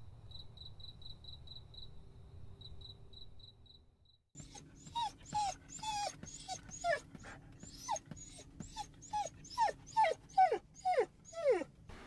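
Insects chirping in a steady pulse, then from about four seconds in a large black dog whining in a car: short high cries that fall in pitch, about two a second and louder toward the end. The whining is the dog's impatience to be let out on arrival.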